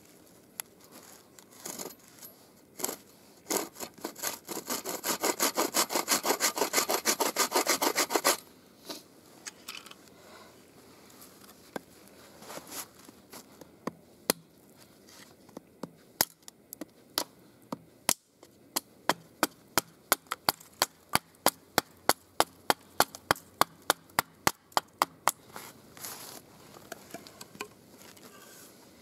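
Hand-held wooden bow saw cutting through a split wooden board: a burst of fast, even strokes lasting about four seconds, the loudest part. Later, a run of sharp, evenly spaced wooden clicks, about three a second, for about seven seconds.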